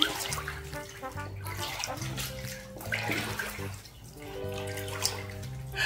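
Shallow bath water sloshing in slow waves, with swells of splashing every second or two, under background music with a plodding, stepping bass line.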